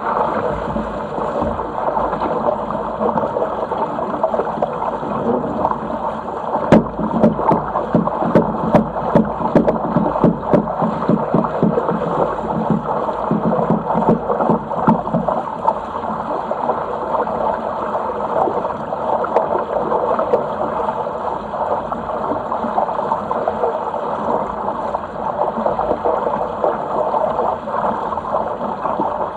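Water rushing and gurgling past the hull of a Sigma 8 metre sailing yacht under way. A run of sharp slaps comes between about seven and eleven seconds in.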